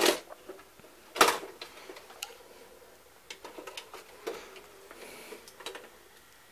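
Clicks and clunks from a VCR's buttons and tape transport mechanism: two sharp clicks in the first second or so, then a scatter of fainter ticks.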